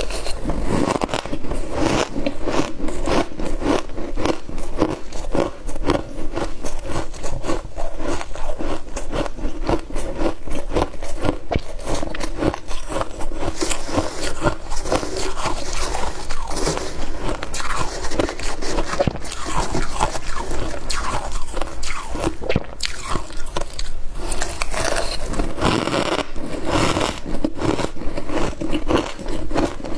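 Close-miked crunching of freezer frost being bitten and chewed, a dense run of crisp crunches with no pause.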